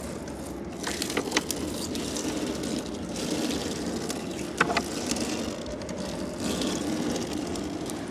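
A small boat's engine running steadily, with a few sharp knocks and some rustling as a gill net is hauled aboard.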